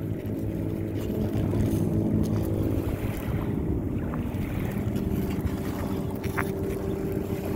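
A steady low engine drone, with wind on the microphone and a few faint clicks.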